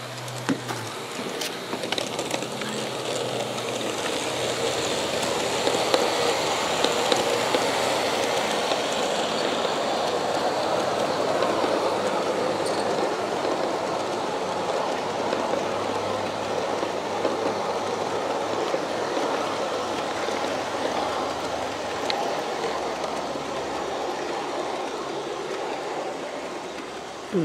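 G-scale model passenger train, Aristo-Craft E9 locomotives pulling heavyweight cars, rolling past on garden-railway track: a steady rumble of metal wheels on the rails with a few sharp clicks. It grows louder over the first several seconds and slowly fades near the end as the cars move away.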